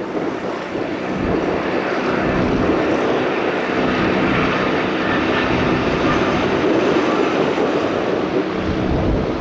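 An Airbus Beluga XL's twin Rolls-Royce Trent 700 turbofans coming in to land: loud, steady jet noise with a low hum underneath.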